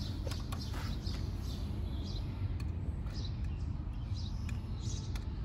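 Outdoor background: a steady low rumble with faint bird chirps and a few light clicks as a car door speaker and its wiring are handled.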